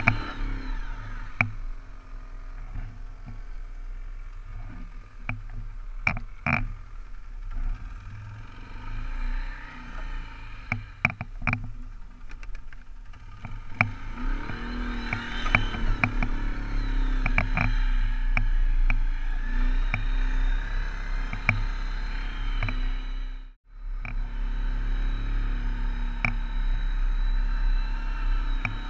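Arctic Cat 550 ATV on rubber track conversions being ridden, its single-cylinder engine running and rising and falling in pitch with the throttle. Sharp knocks and rattles come through over bumps, and the sound drops out for a moment about two-thirds of the way through.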